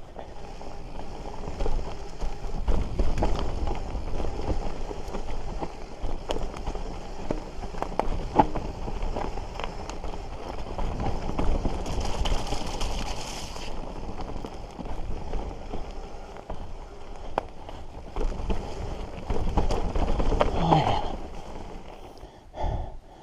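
2021 Giant Trance X 29 mountain bike rolling along a dirt trail: a steady rumble of tyre and trail noise, broken by many sharp rattles and knocks from the bike, with a brief hiss about twelve seconds in.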